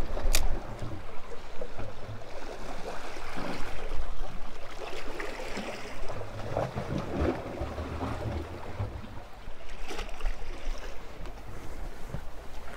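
Small sea waves lapping and sloshing against shoreline rocks, with wind rumbling on the microphone. A sharp click just after the start and another about ten seconds in.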